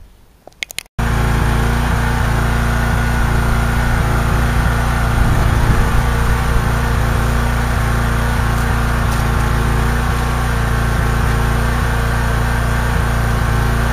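A pressure washer's small engine running steadily. It comes in suddenly about a second in.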